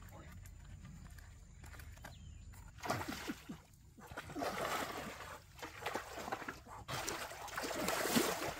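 Water splashing and sloshing as a long bamboo pole is jabbed and stirred in a shallow, rocky stream, in several bursts starting about three seconds in, the loudest near the end.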